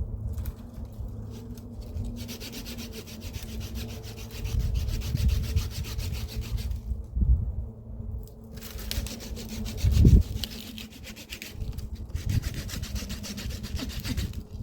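Rough scraping or rubbing in two stretches of a few seconds each, with a few low thuds, the loudest about ten seconds in.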